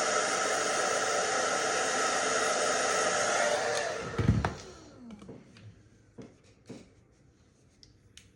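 Hand-held hair dryer blowing steadily with a motor whine, then switched off about four seconds in and winding down, with a low knock as it stops. A few light clicks follow.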